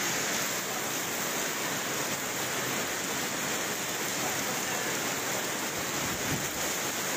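Heavy thunderstorm rain pouring down onto a flooded street: a steady rushing hiss of downpour and running water.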